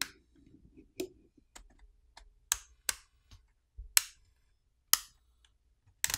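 Plastic catches of a OnePlus Nord N200 5G's plastic back housing popping free from the screen frame as a plastic pry pick is run along the edge. The catches give a series of sharp, irregular clicks, about ten, with short quiet gaps between them.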